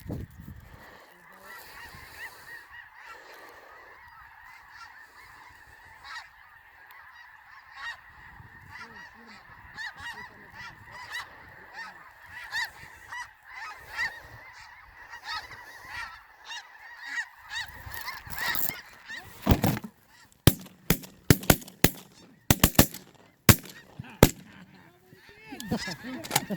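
A large flock of snow geese calling continuously, a dense chorus of high honks. From about nineteen seconds in, a quick string of roughly ten shotgun shots cuts through it.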